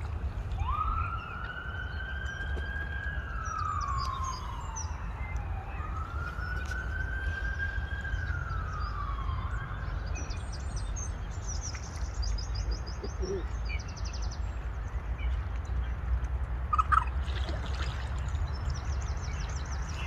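A siren wailing twice, each wail a slow rise in pitch, a hold and a long fall, over a steady low rumble. Small birds chirp briefly in the second half.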